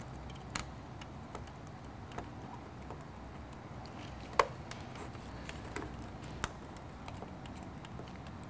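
Scattered small clicks and ticks as a plastic packing strap is worked back and forth under a car's hood emblem, trying to pop it off its retaining pins; the sharpest click comes about four and a half seconds in. A faint low hum runs underneath.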